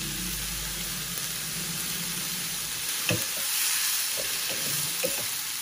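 Mung bean sprouts and carrot strips sizzling steadily in a hot wok. From about three seconds in, a wooden spatula stirs them, with a few knocks against the pan.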